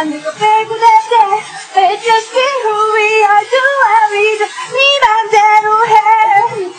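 Female voices singing a pop song live, heard almost bare, with little or no backing track under them.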